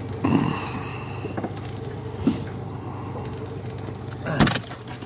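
A steady low hum with a few short knocks, a sound holding two high tones for about a second and a half near the start, and a loud sharp thump near the end.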